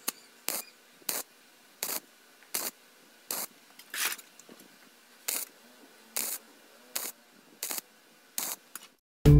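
Wire-feed welder laying a row of tack welds on thin sheet steel over a steel-tube frame, each tack a short crackling burst of the arc, about a dozen of them spaced well under a second apart. Music cuts in suddenly at the very end.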